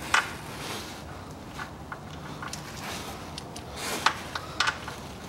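Drain plug of a Toyota RAV4's CVT oil pan being threaded in by hand: several short, sharp metal clicks with light scraping.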